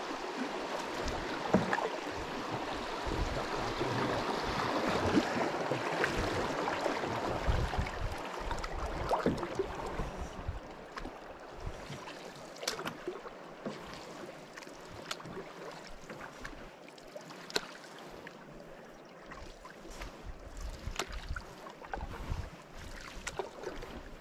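River water rushing around a canoe as it runs through a stretch of fast, choppy current, easing after about ten seconds to calmer paddling with scattered splashes, drips and light knocks of the paddle. Low wind rumble on the microphone comes and goes.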